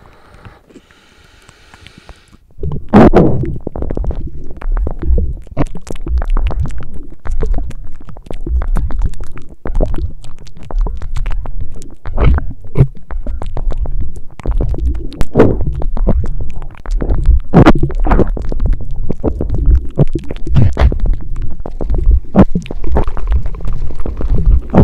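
Loud, close-miked eating sounds: dense, irregular wet clicks and crunches of chewing over a low rumble, starting about two and a half seconds in.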